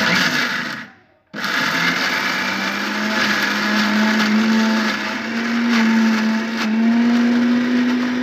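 Preethi mixer grinder's motor running at full speed, grinding dry-roasted spices with a little water into a paste in its steel jar. A short first burst dies away about a second in, then the motor starts again and runs steadily.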